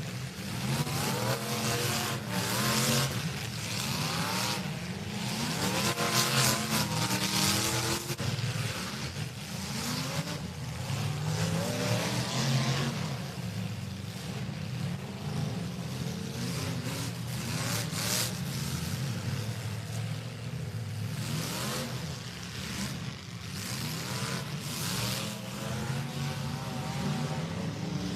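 Demolition derby cars' engines revving hard and dropping back, several at once, pitch rising and falling throughout. Now and then there is a loud crunch or scrape as the cars ram each other.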